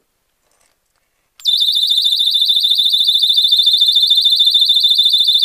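Small handheld electronic alarm switched on in the open, unmuffled, giving a very loud, shrill, fast-warbling tone of about 105 dB. It starts suddenly about a second and a half in, after near silence.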